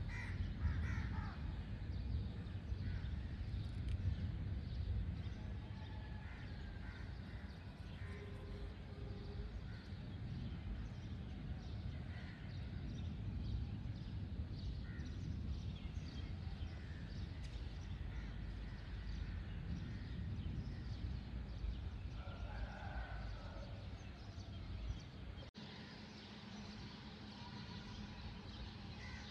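Birds calling now and then, in short scattered calls, over a steady low rumble. The rumble drops away suddenly near the end.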